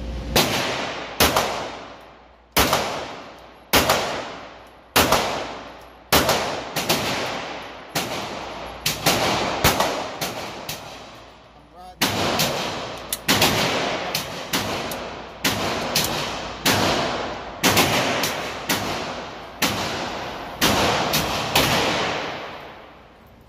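A string of 9mm pistol shots from a Canik TP9 Elite SC, about one to two a second, each sharp crack trailing off in the echo of a concrete indoor range.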